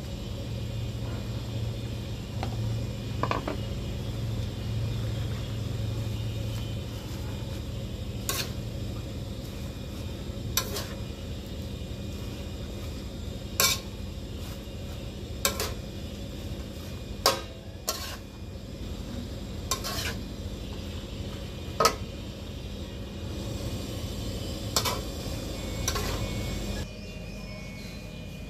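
Squid and basil leaves being stir-fried in a wok: a steady sizzle under the food, with the spatula clinking sharply against the wok about nine times, every second or two through the middle part. The frying noise drops away shortly before the end.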